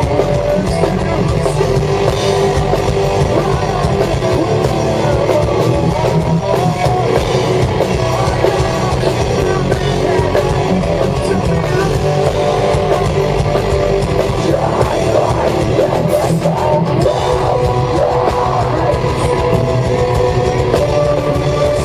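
Metalcore band playing live through a PA, recorded on a handheld camera: distorted guitars and fast drums, loud and without a break.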